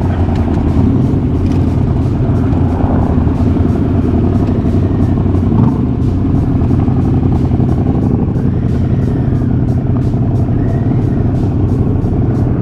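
Motorcycle engine running steadily at a low, even note while riding.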